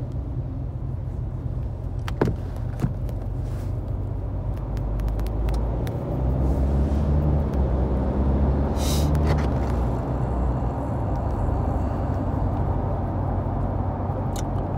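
Low, steady rumble of a car heard from inside the cabin, swelling for a few seconds in the middle, with a few light clicks about two seconds in and a short hiss about nine seconds in.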